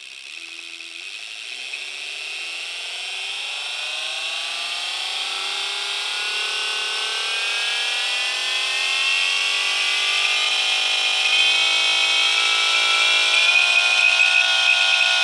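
72 V 3000 W brushless (BLDC) electric cart motor spinning up with no load in its second speed mode, its electric whine climbing steadily in pitch and loudness and levelling off near the end.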